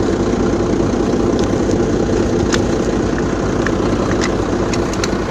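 Heavy vehicle's diesel engine idling steadily, with a few light clicks over it.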